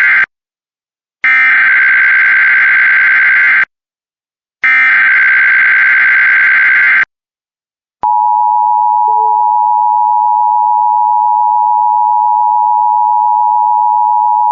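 Emergency Alert System SAME header: the end of one harsh digital data burst, then two more of about two and a half seconds each, separated by short silences. About eight seconds in, the EAS two-tone attention signal (853 and 960 Hz together) starts and holds steady, announcing an emergency alert.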